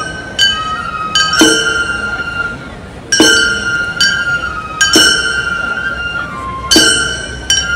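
Gion bayashi festival music: a bamboo transverse flute (nōkan) holds and steps between high notes while small brass hand gongs (kane) are struck at uneven intervals of one to two seconds, each strike ringing on.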